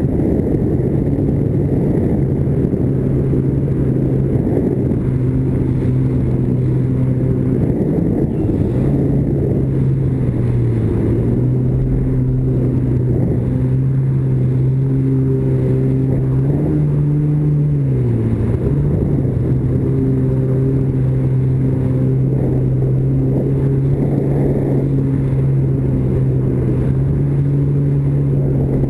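Vintage stand-up jet ski's two-stroke engine running steadily under way, over the rush of water. About two-thirds through, the engine note rises briefly, dips, then settles back to its steady pitch.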